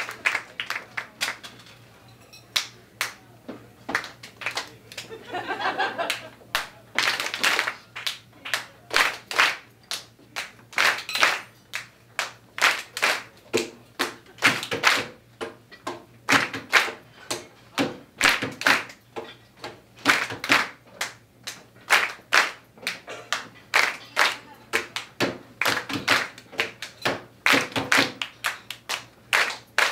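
Stomp-style body percussion by two performers: hand claps, slaps and stomps. It starts with a few scattered hits and builds into a quick rhythm of sharp hits, several a second.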